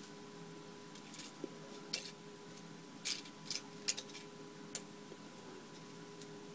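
Small plastic LEGO pieces clicking and rattling against each other as a hand sifts through a pile of loose bricks, with a handful of light, separate clicks spread through, over a faint steady hum.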